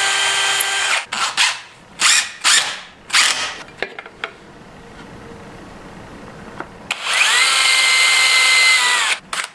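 Cordless drill boring into a wood block. The motor whines steadily for about a second, gives several short bursts, pauses, then runs again for about two seconds near the end, rising in pitch as it spins up and falling as it winds down.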